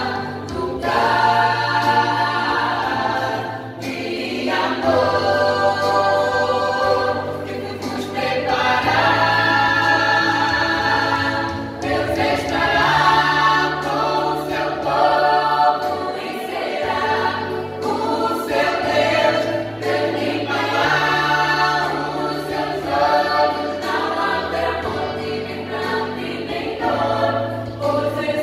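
Small mixed male and female church choir singing a gospel song in harmony, over a steady low bass part that moves between a few notes.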